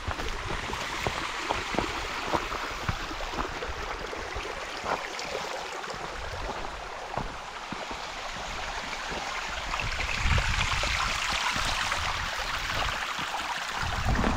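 A stream rushing over rocks, a steady wash of water that grows louder about two-thirds of the way in, with gusts of wind buffeting the microphone.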